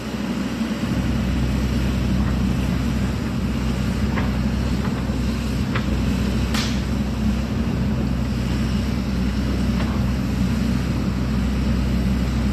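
Sany SY80 excavator's diesel engine running steadily while the machine tears out brush, with a few sharp cracks of snapping wood, the loudest a little past halfway.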